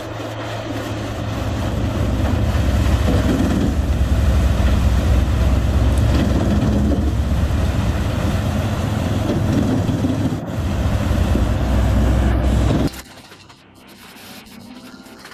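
Heavy wood-processing machinery running hard: a deep engine drone under a dense grinding, rasping noise. It cuts off suddenly about 13 seconds in, leaving a much quieter background.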